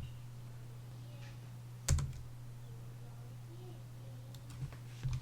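A few isolated computer keyboard or mouse clicks, a sharp one about two seconds in and fainter ones near the end, over a steady low electrical hum.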